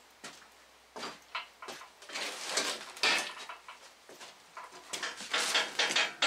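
Knocks and metallic clanking from a steel Pittsburgh engine stand on casters being handled and rolled across a board floor. Scattered knocks at first, then a busier run of clatter from about two seconds in.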